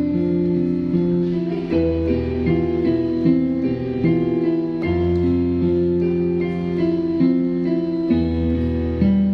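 Instrumental accompaniment music with held chords over a low bass note that changes about every three seconds.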